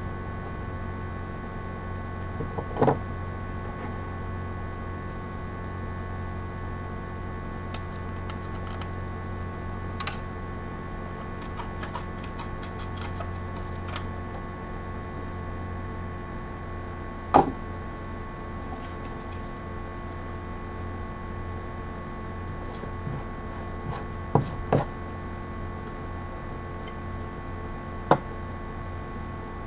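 Steady low hum under a few sharp wooden knocks on a tile floor, the last as the maple hearth board is set down near the end. Light scratchy ticks in the middle as the spindle tip is rubbed with a sandstone.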